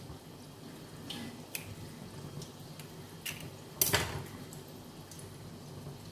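Egg gravy simmering in a steel pan, with a few faint ticks and pops and one sharp knock about four seconds in.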